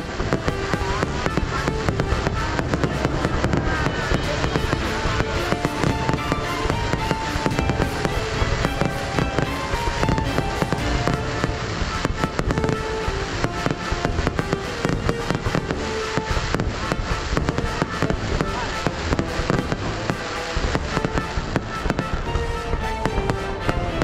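Fireworks going off in a dense, continuous run of bangs and crackles, with music carrying a melody underneath.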